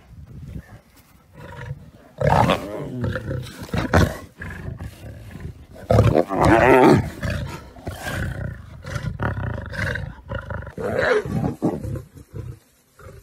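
Lions growling over a zebra carcass in several loud bouts, the loudest about six seconds in: aggressive competition over the meat at the kill.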